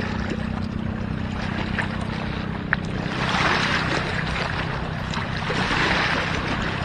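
A boat's motor running steadily, with a rushing noise of wind and water that swells twice.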